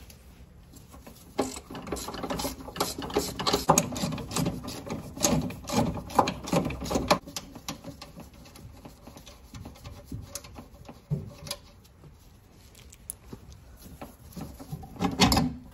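Hand tools and metal fittings clicking and knocking as a hydraulic suspension accumulator is unbolted and worked out of a Mercedes SL500's rear wheel well. The clicks come fast and irregular in the first half, thin out after, and there is a louder rattle near the end.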